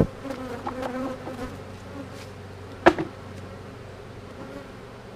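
Honeybees buzzing around an open hive. A sharp knock comes right at the start and a louder one about three seconds in, as wooden hive boxes are handled and set down.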